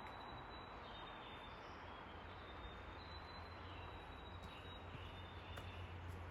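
Quiet forest ambience: a faint steady hiss with thin, high-pitched tones held for a second or so at a time, stepping slightly in pitch.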